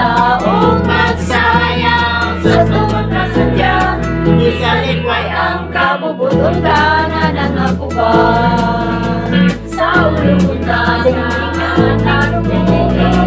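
A song: singing voices over an accompaniment of held bass notes that change every second or so, with a light, regular ticking beat.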